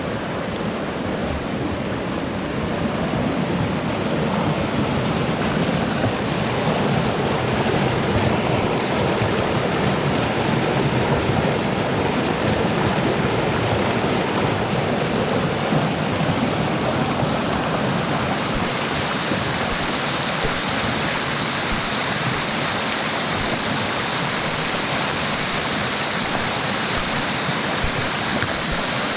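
Rain-swollen mountain stream rushing steadily. About eighteen seconds in, the rush turns brighter and hissier.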